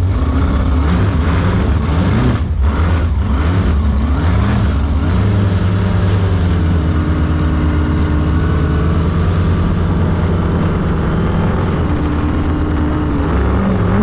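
468 cubic-inch big-block Chevy V8 of a Sanger V-drive boat running hard under throttle. Its pitch climbs in steps over the first few seconds, then holds a steady high-speed drone, and it starts rising again near the end.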